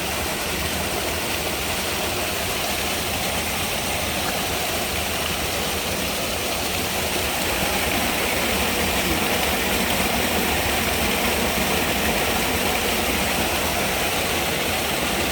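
Steady rush of floodwater pouring and churning over a small drop, with no break, getting a little louder about halfway through.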